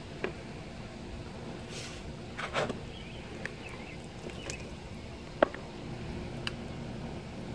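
Handling noise from a clear plastic container and a gel target block on a wooden table: scattered light clicks and knocks, the sharpest about two-thirds of the way through, as the container is lifted off the gel. A steady low hum runs underneath.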